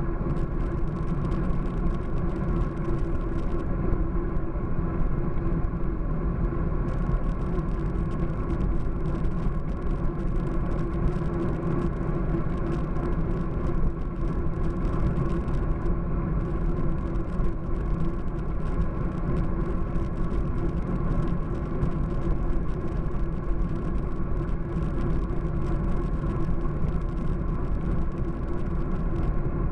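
Wind and road noise picked up by a bike-mounted camera on a road bike riding at speed on asphalt: a steady rumble with a constant hum and no pauses.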